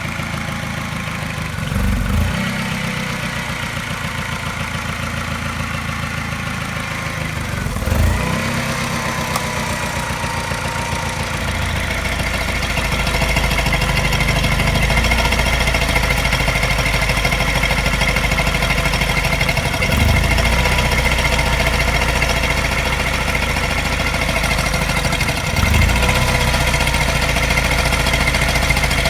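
Mini N12 four-cylinder petrol engine idling, stumbling briefly every several seconds, four times in all: the regular slight misfire, which comes with a mild tap. The idle gets louder about twelve seconds in.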